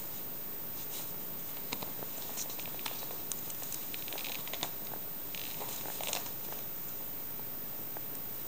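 Fabric rustling and small clicks from a cat being picked up and held against clothing and bedding, scattered through the middle few seconds, over a steady background hiss.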